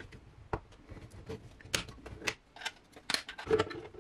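3D-printed plastic parts clicking and clacking as they are handled and fitted together: a handle piece pressed onto the box lid, then the lid set onto the box. Irregular sharp clicks, a few louder ones in the middle and near the end.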